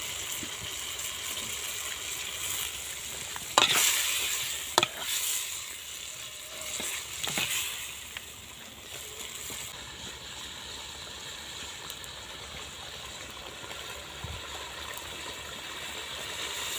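Chicken curry cooking in a metal pot over a wood fire, a steady hiss, with a metal ladle stirring and knocking sharply against the pot three times in the first half.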